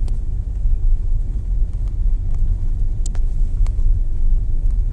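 Car driving slowly along a country lane, heard from inside the cabin: a steady low rumble of engine and tyres. A couple of short sharp clicks come about three seconds in and again shortly after.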